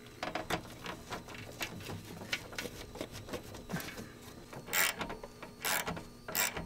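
A hand ratchet clicking in short, irregular strokes as the hose clamp on the lower radiator hose is tightened, with a few louder rasping strokes near the end.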